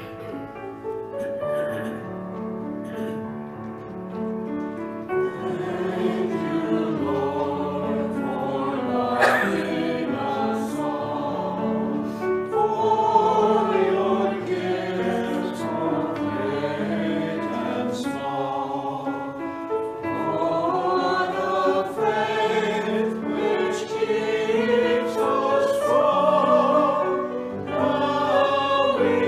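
Small mixed choir of men's and women's voices singing an anthem in parts, with piano accompaniment.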